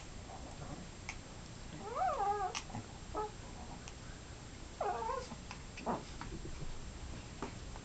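Pets play-fighting, with two wavering, whiny yowls, one about two seconds in and a shorter one about five seconds in, and light scuffling and knocks between them.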